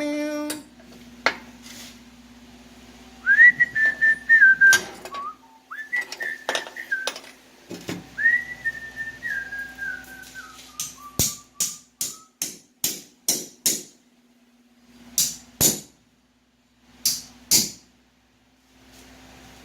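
A person whistling three short phrases, the pitch stepping down within each, followed by a string of sharp metal clanks, about two a second at first and then two pairs. A faint steady low hum runs underneath.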